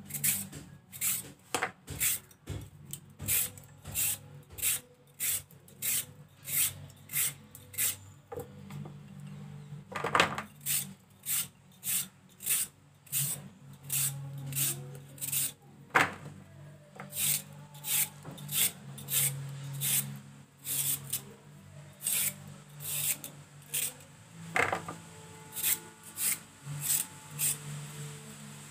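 Raw carrots being peeled with a vegetable peeler: short, sharp scraping strokes of the blade along the carrot, over and over at a little more than one a second, with now and then a louder stroke.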